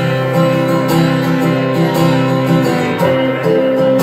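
Acoustic guitar strumming steady chords in an acoustic folk song, with no singing.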